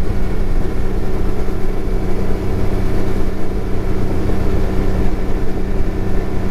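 Bass boat's outboard motor running steadily at cruising speed, with the boat up on plane and the motor trimmed up slightly.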